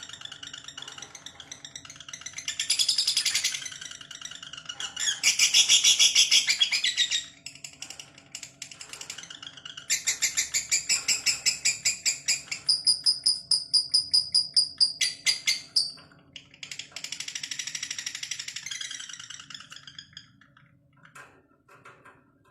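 Lovebird singing its long 'ngekek' chatter: rapid runs of shrill, buzzy notes in about five bouts, the longest running about six seconds, then fading away near the end.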